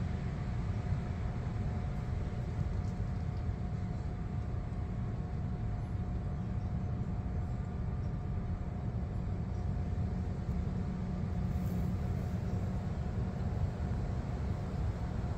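Steady low outdoor rumble with a faint, even hum above it and no distinct events.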